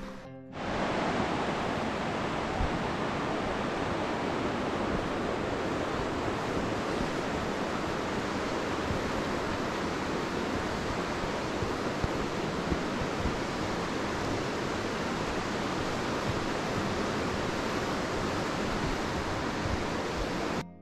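Steady, even roar of a waterfall or rushing river water. It starts abruptly about half a second in and cuts off just before the end.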